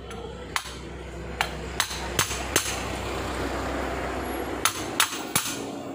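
A hammer tapping on a small metal part: eight sharp metallic strikes in two groups, five in the first half and three near the end, over a steady hiss that swells between them.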